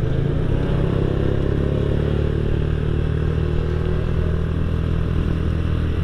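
Honda Astrea Grand's single-cylinder four-stroke engine running steadily under way, heard through a stock Honda Revo muffler with its insides bored out and a custom neck pipe, which gives it a deep, mellow exhaust note ("bass adem").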